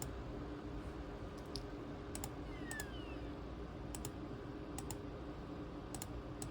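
Sharp clicks from a ThinkPad T23 laptop's keys and buttons, mostly in quick pairs like double-clicks, coming roughly once a second. A steady faint low hum runs underneath.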